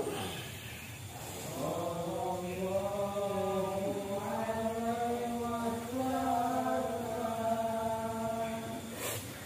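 A man's voice chanting slowly, holding each note for a long time with small steps in pitch between them.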